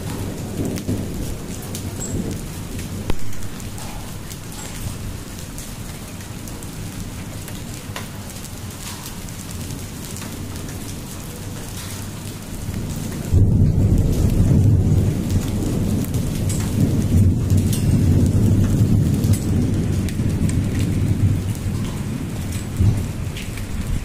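Hailstones and rain falling on a concrete yard: a steady hiss with many sharp ticks of single stones striking, and one louder knock about three seconds in. A deep rumble comes in suddenly about halfway through and holds for several seconds before easing off.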